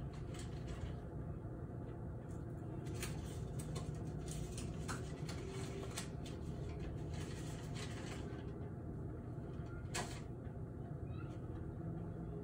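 Steady low city rumble, like distant traffic, with scattered light clicks and a sharper click about ten seconds in.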